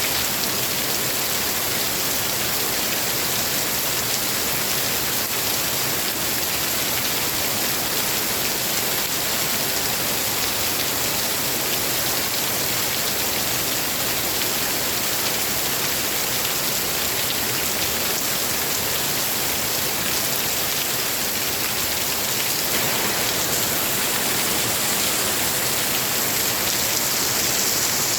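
Steady rain falling hard, a dense even hiss of drops pattering on surfaces, growing a little brighter about three-quarters of the way through.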